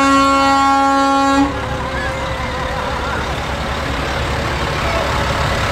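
A vehicle horn holds one long blast that cuts off about a second and a half in, followed by the steady low rumble of a truck engine.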